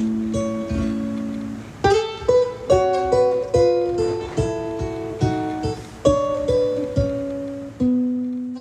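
Solo ukulele fingerpicked: a melody of single plucked notes and chords, each ringing and fading, with a last note left to ring near the end.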